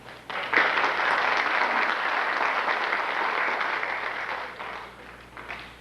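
Theatre audience applauding, starting about a third of a second in and fading out after about four and a half seconds, with a few last claps near the end.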